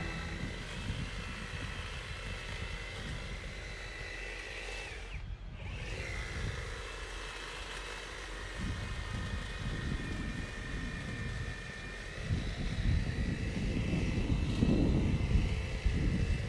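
Echo DHC-200 50 V cordless hedge trimmer running as it cuts a hedge, a steady high motor-and-blade whine. The whine drops out briefly about five seconds in, then resumes. A low rumbling noise grows louder over the last few seconds.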